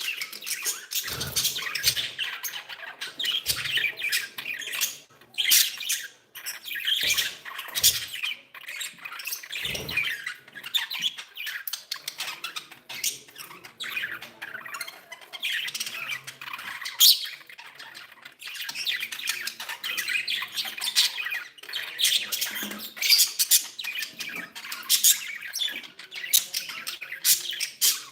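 Several budgerigars chattering and squawking without pause, in a busy mix of chirps and harsh calls, with a few sharp taps or clicks among them.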